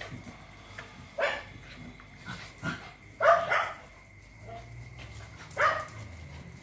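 Phu Quoc ridgeback dogs play-fighting, giving a few short barks, the loudest about three seconds in.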